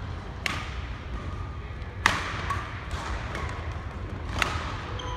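Badminton rally: rackets hitting the shuttlecock in three sharp smacks about two seconds apart, the loudest about two seconds in, over a steady low hum.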